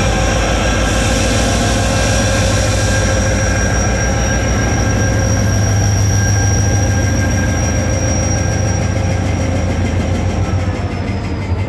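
Diesel locomotive engine running loudly under a steady load, its pitch rising slightly at the start and dropping away about ten seconds in. A brief hiss sounds in the first few seconds.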